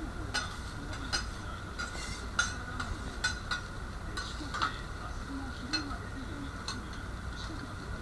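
Metal utensils on a hot teppan griddle cooking okonomiyaki: irregular sharp clinks and taps, about one or two a second, over a steady sizzle.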